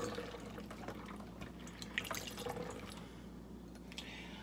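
Liquid trickling from a glass measuring cup through a metal funnel into a plastic spray bottle, with small drips, tapering off about three seconds in. A light click near the end.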